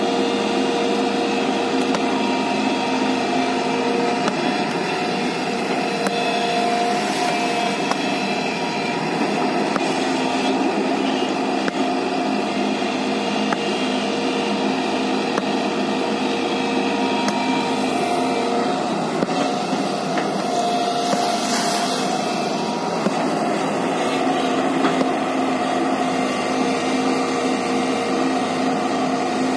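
A JCB tracked excavator's diesel engine and hydraulics running steadily as its upper body swings round: a continuous drone with a few held tones that shift partway through.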